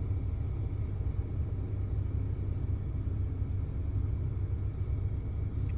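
Steady low rumble of a car's interior, even and unbroken.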